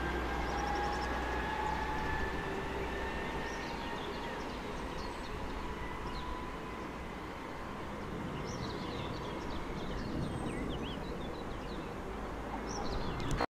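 Electric multiple unit pulling away along the track, its traction motors giving a faint whine that rises slowly in pitch over a steady rumble as it accelerates and recedes. Birds chirp over it through the later part.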